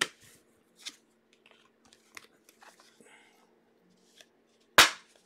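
A trading-card box and its stack of cards being handled: light cardboard scrapes and card rustles, with one short, sharper noise near the end.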